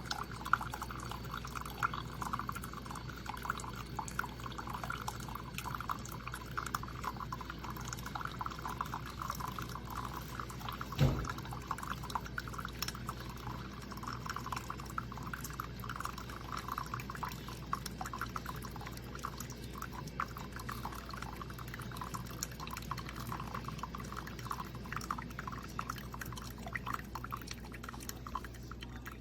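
A steady stream of liquid pouring and splashing into a vessel, with one sharp knock about eleven seconds in.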